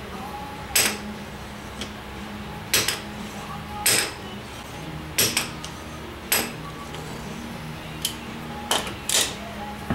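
Hammer tapping on a cut-down steel socket clamped in a bench vise: about nine sharp metallic clinks at uneven intervals, each ringing briefly.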